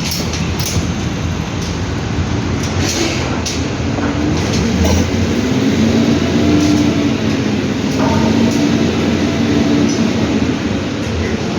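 Heavy construction machinery running with a loud, steady rumble. A few sharp knocks come in the first few seconds, and a wavering hum rises and falls through the middle.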